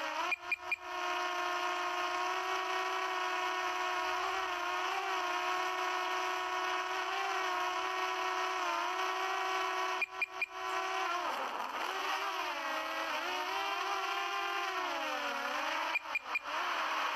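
Quadcopter drone's propellers whining steadily, the pitch wavering and dipping low about eleven seconds in. The sound cuts out briefly three times.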